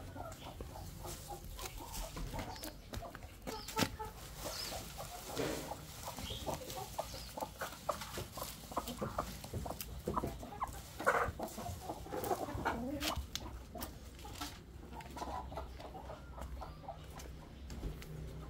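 Chickens clucking in short, scattered calls, with a louder run of calls about two-thirds of the way through.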